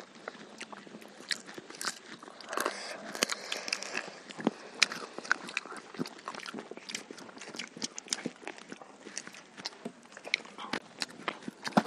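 Close-up eating sounds: chewing and biting into fried chicken and rice, with frequent irregular sharp crunchy clicks.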